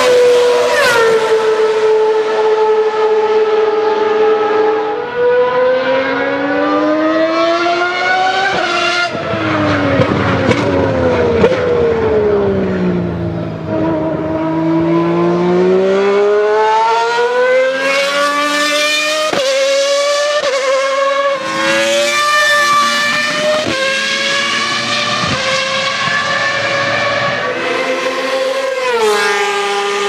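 Formula 1 car engine running at high revs, its pitch climbing and then falling sharply again and again as it goes up and down the gears. About a third of the way in the pitch slides down for several seconds, then climbs back in steps.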